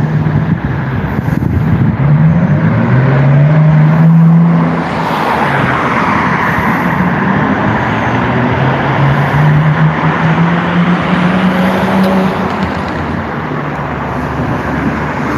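Street traffic: motor vehicles driving past, their engine drone rising in pitch as they accelerate, loudest about two to four seconds in and rising again more slowly later.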